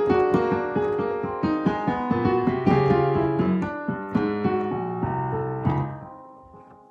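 Piano playing a quick, busy run of notes. The notes die away from about six seconds in.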